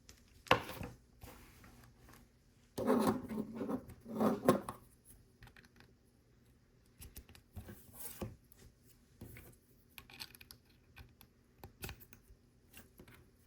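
LEGO pieces and instruction pages being handled: a louder stretch of rustling and scraping, then scattered small clicks and taps of plastic bricks.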